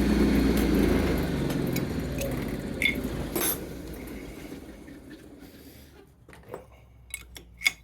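A workshop machine's motor winding down, its steady hum fading away over about five seconds. It is followed by a few light metallic clinks near the end.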